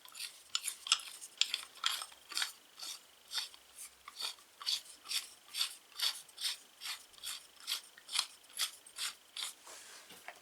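Threaded rod being screwed by hand into a homemade clamp, making a run of short scraping clicks, about two a second, as the thread turns.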